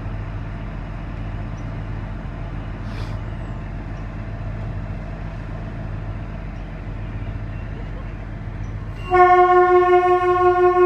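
A steady low vehicle rumble, then about nine seconds in the Shimla toy train's horn starts suddenly and holds loud and steady on one pitch.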